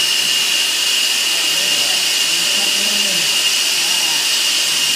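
Gas soldering torch hissing steadily with a constant high tone while copper pipe joints are sweated. Faint voices murmur underneath.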